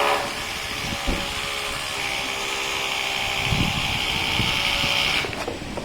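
Hand-held electric power tool running steadily with a whine that shifts higher about two seconds in, then stops near the end.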